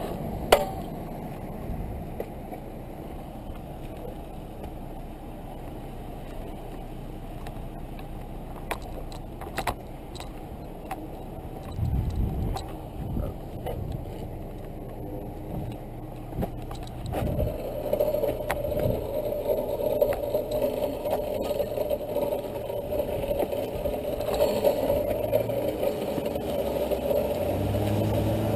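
Mini bikes with their engines off being grabbed and pushed along on foot: a sharp clack about half a second in as one is picked up, then scattered clicks and rattles. A steady vehicle engine sound comes in about halfway through and carries on.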